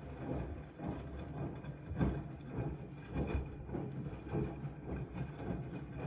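Siemens iQ300 front-loading washing machine in its wash cycle: the drum turning, with wet laundry and soapy water sloshing and falling about once a second over a low rumble.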